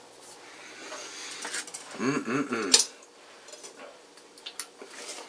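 Steak knife and fork scraping and clinking on a ceramic dinner plate while cutting into a steak, with a louder wavering sound about two seconds in that ends in a sharp clink, then a few lighter clicks.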